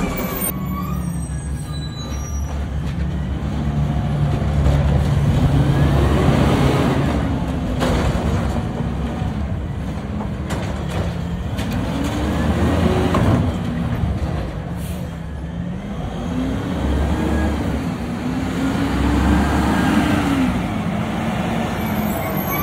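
Automated side-loader garbage truck's diesel engine running and revving up and down in several rising and falling swells, with a couple of short air-brake hisses.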